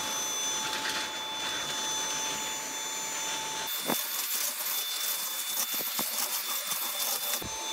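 Dyson V7 Animal+ cordless stick vacuum running on its lower power setting, a steady motor whine. Its sound changes about four seconds in, with a few light clicks, and changes back near the end.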